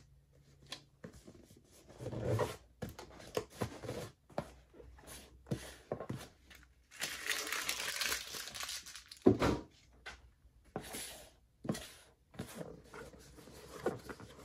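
Adhesive paper labels being peeled from their backing and pressed onto a cardboard box, with paper crinkling and rustling and scattered knocks of the box on the desk. A longer rustle runs from about seven to nine seconds in, followed by a sharp knock, the loudest sound.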